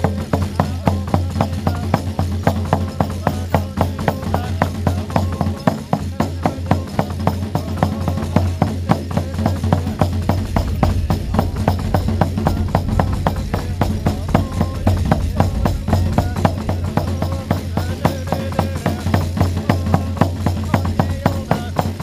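Shamans' large hand-held frame drums beaten in a steady ritual rhythm, about three beats a second, the strikes of several drums overlapping.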